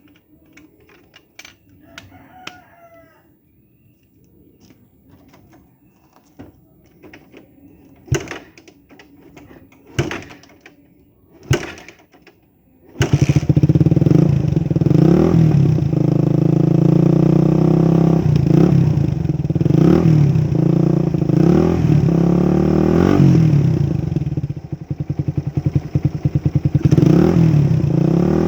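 Motorcycle engine breathing through a 51 mm Akrapovic exhaust with a big elbow and a dB killer packed with steel wool: it starts abruptly about thirteen seconds in and is revved again and again in short blips. Before that it is quiet but for a few sharp knocks and a rooster crowing faintly about two seconds in.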